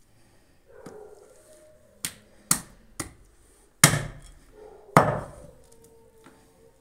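Heavy cleaver chopping through a goat head into a wooden chopping board: five sharp strikes, the first three about half a second apart, then two heavier blows.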